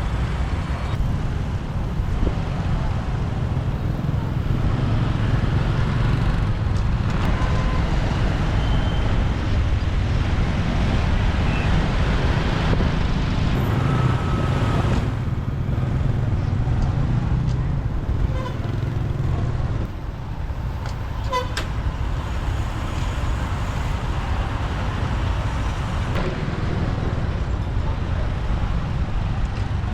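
Motorbike riding through city traffic: a steady low rumble of engine and road, with surrounding traffic and a few short horn toots from other vehicles.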